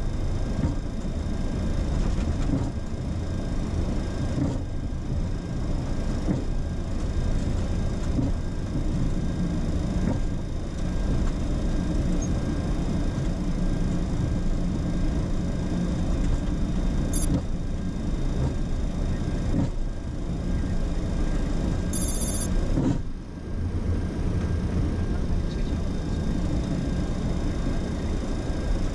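Steady low rumble inside a Boeing 737-800 cockpit as the jet taxis onto the runway: engine noise and the airframe rolling on the ground. Two brief high-pitched electronic blips sound a little past halfway, the second one about five seconds after the first.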